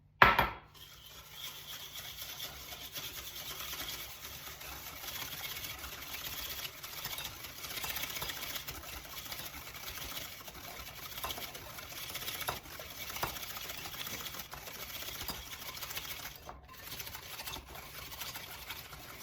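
Wire whisk beating melted butter and sugar in a bowl by hand: a fast, steady scraping and clicking against the bowl. A single sharp knock comes just at the start.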